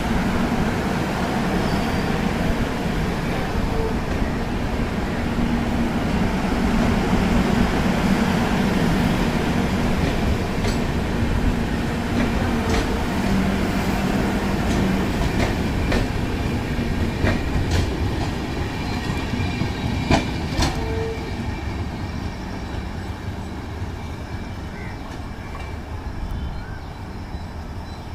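Shatabdi Express passenger train running past: a steady rumble with clattering wheels and a few sharp clicks over the rails. The sound fades away over the last several seconds.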